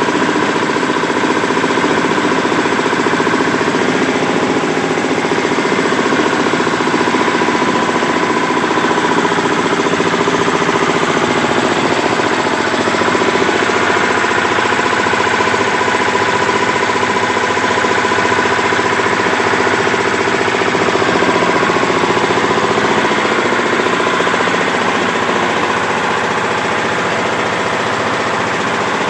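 Small single-cylinder stationary diesel engine running steadily at constant speed, belt-driving a brick-making machine.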